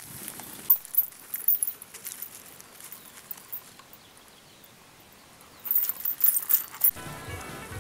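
A large flock of sheep on the move, hooves pattering and clicking, in two spells with a quieter stretch between. Music begins near the end.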